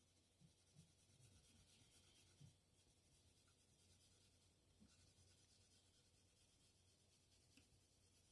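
Faint scratching of a Tombow NQ colored pencil shading across drawing paper in repeated back-and-forth strokes.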